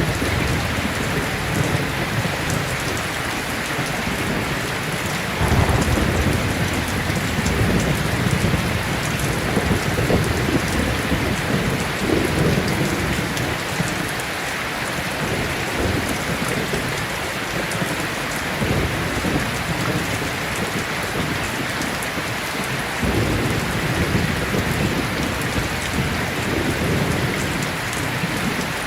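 Steady rain falling in an even hiss, with deep low rumbles that come in suddenly about five seconds in and then swell and fade again and again.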